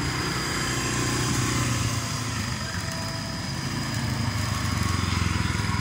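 A small motorcycle's engine running as it rides along the lane, growing louder toward the end as it comes near. A thin, steady high-pitched tone sounds throughout.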